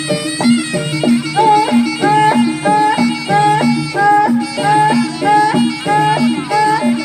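Jaranan senterewe dangdut-style ensemble music: a melody repeating a short rising figure over a steady beat and a bass alternating between two notes.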